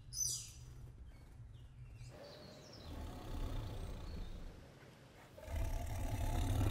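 Tiger growling low, in two stretches, the second louder, near the end. A brief high cry at the very start.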